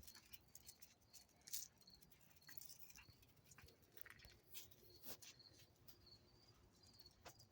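Near silence: faint scattered ticks and clicks, with a faint high chirp repeating off and on in the background.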